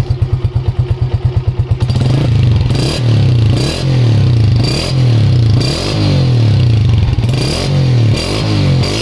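Atlas Honda CG125 motorcycle's single-cylinder four-stroke engine through an aftermarket SC silencer. It idles with an even, rapid thump for about two seconds, then is revved repeatedly in short blips, about one a second.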